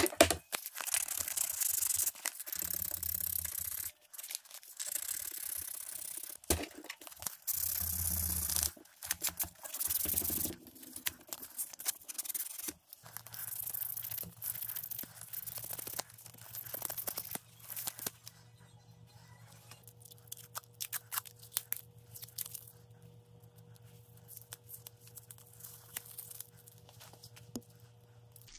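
Abrasive paper rubbed by hand over a wooden knife handle: quick, rasping sanding strokes, loud and dense for the first half, then lighter and sparser scratches over a faint low hum.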